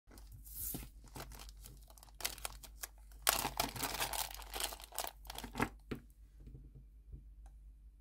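Small plastic packaging bags being torn open and crinkled by hand: irregular rustling and crackling, densest a few seconds in, dying away about six seconds in.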